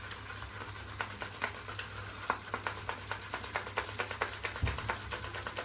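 Boar-bristle shaving brush being scrubbed and swirled on a very hard, unbloomed puck of shaving soap to load it: quick irregular scratchy clicks, several a second.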